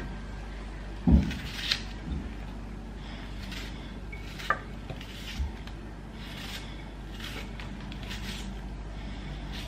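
Chef's knife cutting through an onion held in the hand, with faint crisp slicing strokes and pieces dropping into a glass baking dish. A dull knock comes about a second in, and a short ringing clink comes midway.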